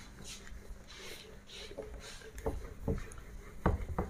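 A handheld eraser wiping a whiteboard in several short rubbing strokes, with a few knocks of the eraser against the board in the second half.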